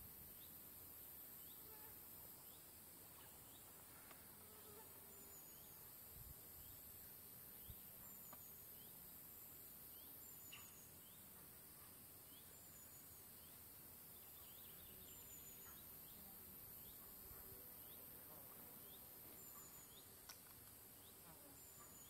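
Faint outdoor insect ambience: a steady high hiss of insects, with a short high chirp repeating about every one and a half to two seconds and a scatter of small, faint chirps beneath.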